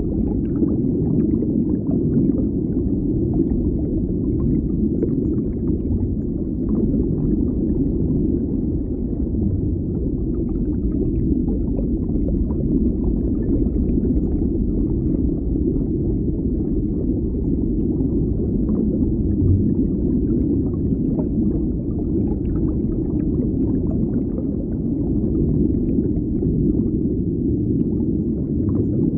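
Underwater deep-water ambience: a steady, muffled, deep rumbling wash with faint scattered crackles above it.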